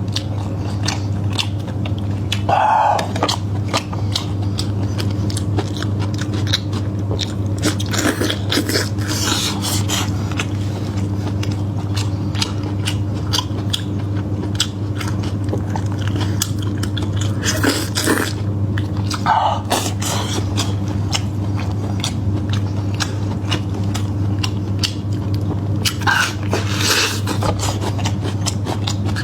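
Close-miked sounds of a person eating: chewing and biting with many small smacking clicks and a few louder bites, over a steady low hum.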